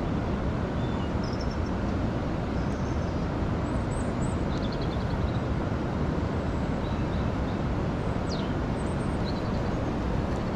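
Steady rushing noise of a swollen river running high after heavy flows, with a few faint bird chirps over it.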